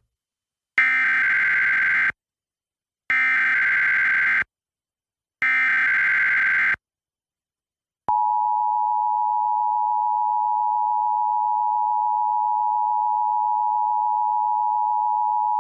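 Emergency Alert System signal for a Required Monthly Test. Three short bursts of SAME digital header data, each a buzzy screech of about a second and a half with gaps between, are followed about eight seconds in by the steady two-tone EAS attention signal.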